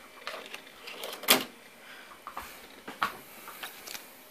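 A 3.5-inch floppy disk is pushed into a Macintosh IIci's floppy drive, a check of the drive's alignment. There is a sharp clack about a second in as the disk seats in the drive, a second clack near three seconds, and lighter clicks and handling noise around them.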